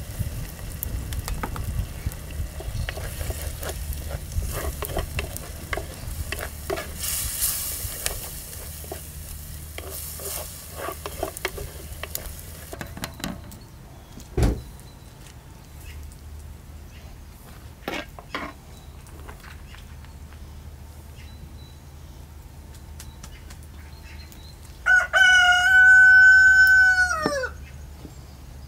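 A rooster crows once near the end, a long held call that drops in pitch as it finishes; it is the loudest sound. Before it, a wooden paddle stirs in a steaming pot, with scraping, clicks and a hiss, followed by a few scattered knocks.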